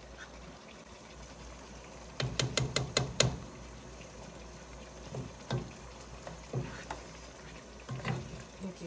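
Chicken karahi cooking in a pot with a faint sizzle, and a spoon and spatula knocking against the pot and spice jar. There is a quick run of about six light taps a couple of seconds in, then a few single knocks as the curry is stirred.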